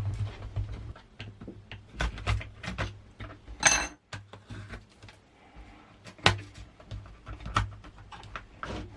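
Scattered clicks, knocks and metallic clatter of an LCD monitor panel's metal frame and parts being handled and prised apart by hand and tool, with one brief ringing clink about three and a half seconds in.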